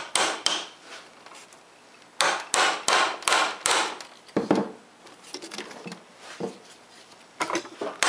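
Hammer tapping a stepped swedge tool into the end of a 1/4 inch copper tube, expanding it so the other tube can fit inside. Sharp taps: a couple at the start, five in quick succession about two seconds in, then a few lighter taps near the end.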